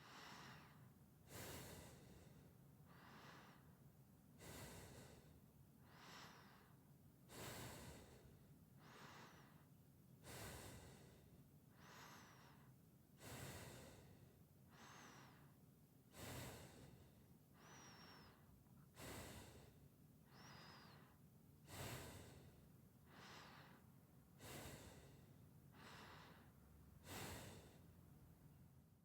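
A person breathing slowly and quietly through the nose, steady alternating inhales and exhales about every one and a half seconds, each a soft airy rush. A faint whistle from the nose comes on a few of the breaths.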